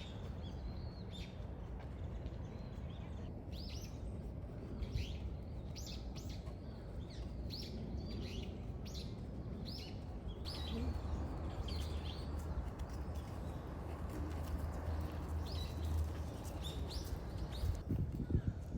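Small birds chirping in short, high calls, repeated many times over a low, steady background rumble.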